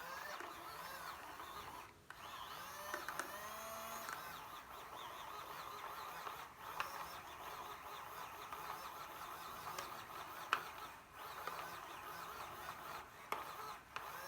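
Small electric motor of a mini makeup brush washing machine running steadily as it spins a brush in water, with a few brief dips.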